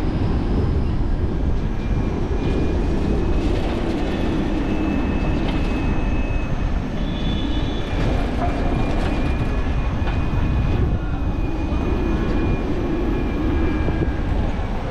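Wind rushing and buffeting over the microphone of a moving bicycle, with the steady high whine of an all-electric city bus running alongside.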